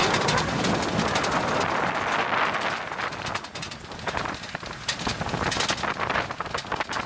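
Wind buffeting the microphone over the rattle and knocks of an open-sided Land Rover Defender jolting along a rough dirt track. It is loudest in the first few seconds.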